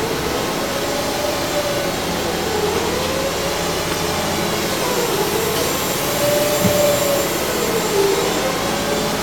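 Steady whirring hum of running machinery, with a whine that slowly wavers up and down in pitch.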